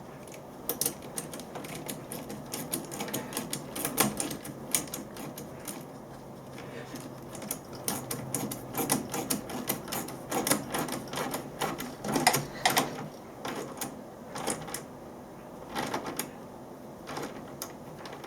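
Ratchet handle clicking in short quick runs as a hose clamp on a radiator top hose is tightened. The ratchet is old and has a lot of play in it.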